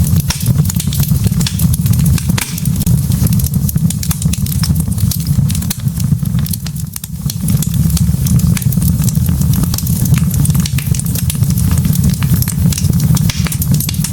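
Log fire crackling, with many small irregular pops and snaps over a steady low rumble of the flames.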